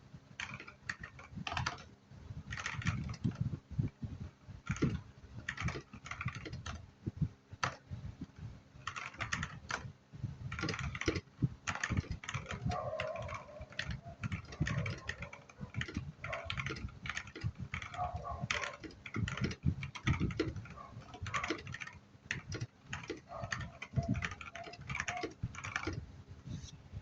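Typing on an Eyooso Z-94 mechanical keyboard with red linear switches: quick, irregular key clacks in runs, with short pauses between them.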